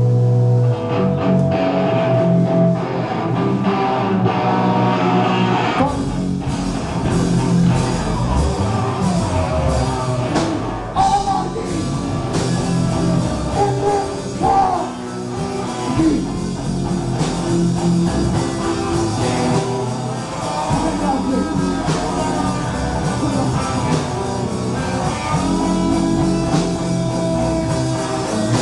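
Live rock band playing loud: electric guitar with drums, bass and shouted vocals, the full band kicking in about six seconds in after guitar notes ring alone.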